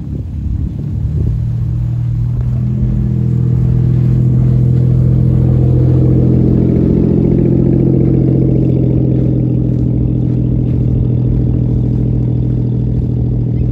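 A car engine running at a steady speed close by, growing louder over the first few seconds and then holding even. It cuts off suddenly near the end.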